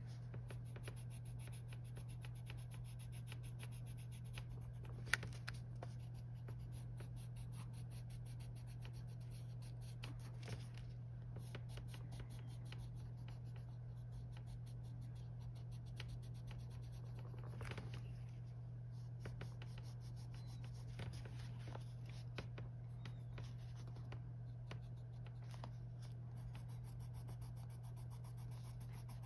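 Arteza colored pencil scratching on coloring-book paper in quick, continuous strokes, laying a camel-brown layer over earlier colour. A steady low hum runs underneath, and there is one sharp click about five seconds in.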